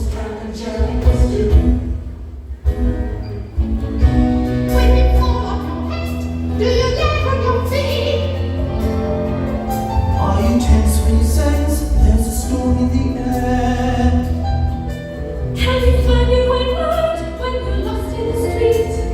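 Group of voices singing a show tune over instrumental accompaniment, with held notes over a steady bass line.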